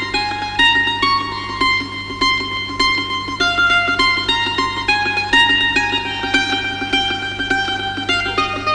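Background music: a plucked string instrument, mandolin-like, playing a quick run of bright notes, several a second, over a steady low drone.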